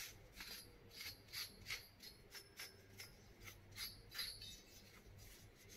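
A tissue wipe rubbed in short strokes over the aluminium fins of a GTX 1050 Ti graphics-card heatsink: a faint, quick scratchy rustle about three times a second, thinning out after about four and a half seconds.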